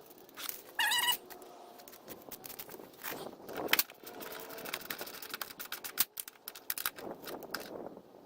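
Small metal clicks and taps of hand tools and hood-latch parts being handled, with a quick run of clicks in the second half and a brief high squeak about a second in.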